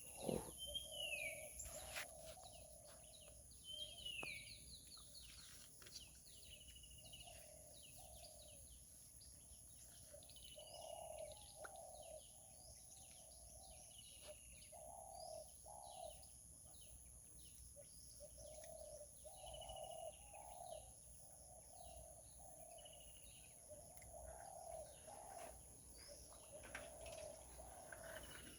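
Faint birdsong: a dove cooing in short low phrases every few seconds, while another bird gives short falling whistled chirps. A steady high hiss runs underneath.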